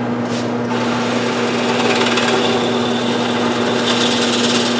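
Electric woodworking power tool running steadily with a constant motor hum, its hiss growing louder about a second in as it works the wood.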